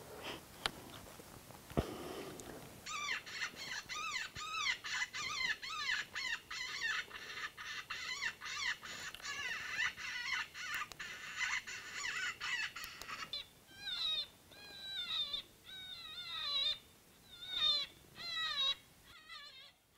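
Electronic predator call playing a baby cottontail rabbit distress sound, meant to lure coyotes. A sharp click comes first, then from about three seconds in a fast run of high, wavering squeals. After about thirteen seconds the squeals slow into separate, spaced cries.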